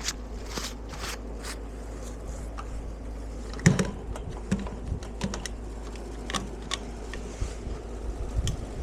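Footsteps crunching through deep snow, four even steps in the first second and a half, then scattered sharp clicks and crunches, the loudest about four seconds in.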